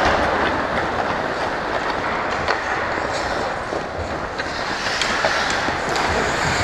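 Ice hockey play: skate blades scraping and carving on the ice as a steady rasp, with a few scattered sharp clicks of sticks and puck.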